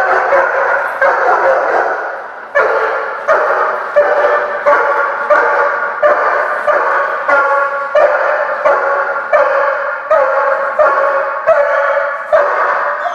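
German shepherd protection dog barking steadily and repeatedly, about three barks every two seconds, in a bark and hold: it keeps its distance from a hidden person it has found and holds them with barking.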